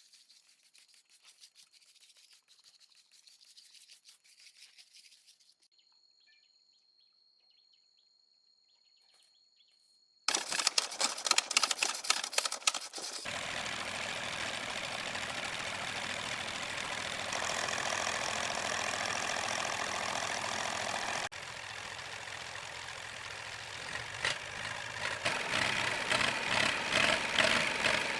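Iseki 24 hp engine starting about ten seconds in with a sudden burst of rapid, even knocking, then running on steadily, louder near the end. Before it there is faint noise and then near silence with a thin high whine.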